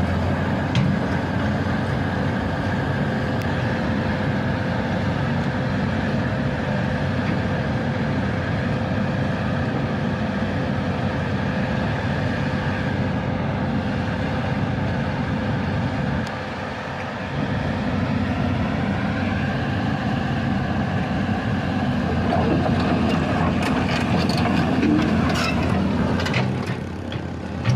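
Komatsu excavator's diesel engine running steadily under hydraulic load, with a thin steady whine; its note rises about two-thirds of the way through, and sharp metallic clicks and knocks come in near the end.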